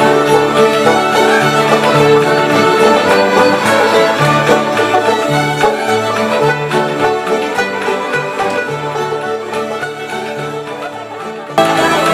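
A group of fiddles playing a tune together. The playing fades down over the last few seconds, then cuts abruptly to louder fiddle playing near the end.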